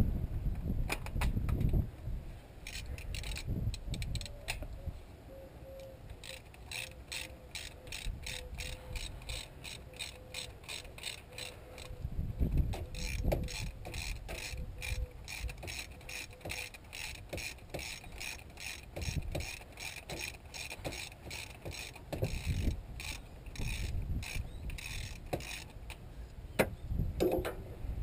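Hand ratchet wrench clicking as a bolt is turned out of the engine's timing components: a steady run of about two to three clicks a second, with a short break a few seconds in. Occasional low knocks from handling tools and parts.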